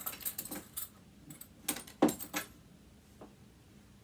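Small metal hex keys clinking and knocking together as they are picked through and tried. There are several sharp clinks in the first second and a cluster around two seconds in, the loudest knock among them.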